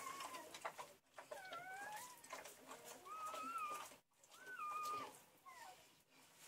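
Newborn Saint Bernard puppies crying: about five high, mewing squeals, each rising and falling over half a second to a second, with the mother's licking in between.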